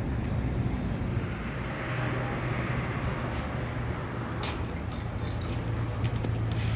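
Motor vehicle running steadily: a low engine hum under even road noise, with a swell of noise that rises and fades in the middle and a few faint clicks later on.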